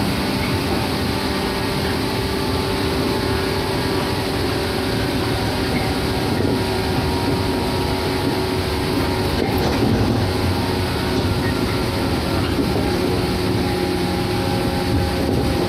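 Shinano Railway 115-series electric train running between stations, heard from inside a passenger car: a steady rumble of wheels on rail with an even hum from the running gear.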